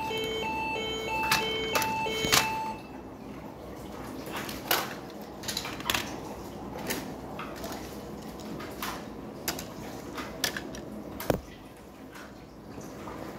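A toy ambulance's electronic siren beeps in a repeating two-tone pattern and cuts off about two and a half seconds in. Scattered sharp clicks and knocks follow over a faint hiss.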